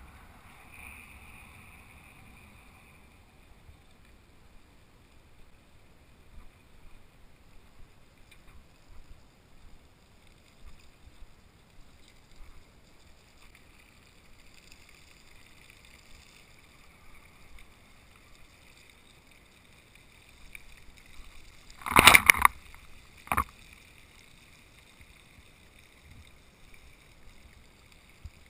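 Bicycle rolling over pavement, partly wet, with a low steady rushing noise. About three-quarters of the way through come two loud harsh bursts about a second apart.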